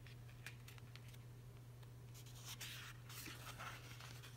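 Faint rustling and light clicks of a pad of paper sticker sheets being handled and a page turned over, the rustling mostly in the second half.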